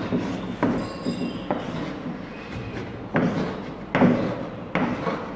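Chalk writing on a blackboard: a series of sharp taps with short scraping strokes between them.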